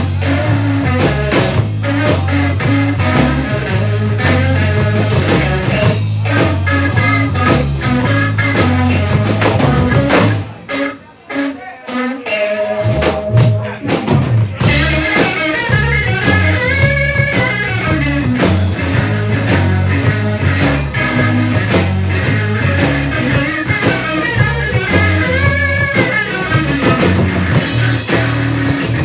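Live blues-rock trio playing: electric guitar, electric bass and drum kit. About ten seconds in the band drops out for a brief break with a single held note, then comes back in full about four seconds later.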